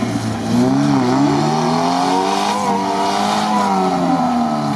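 Off-road 4x4 engines revving hard and unevenly in deep mud, their pitch rising and falling over and over. More than one engine is running at once.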